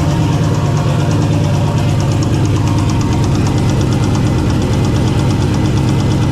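Engine running with a rapid, even knock: rod knock from a spun connecting-rod bearing, which the owner puts down to detonation from high air temperatures.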